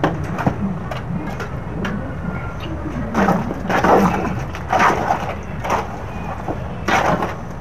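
Gritty scraping and crunching of concrete being worked by hand, in several short bursts that come mostly in the second half, over a steady low rumble.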